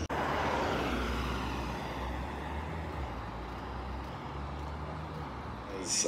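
Road traffic noise: a passing vehicle's hiss that fades over the first couple of seconds, over a steady low rumble.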